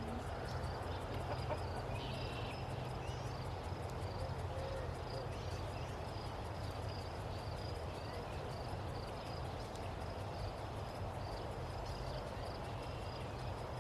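Outdoor ambience: a steady, rapidly repeating insect-like chirp, a few short bird calls and a low steady hum underneath.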